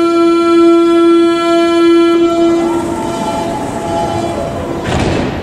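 Berlin U-Bahn type IK train's door-closing warning: one steady buzzing tone lasting about three seconds while the doors shut. A faint falling whine follows, then a short thump near the end.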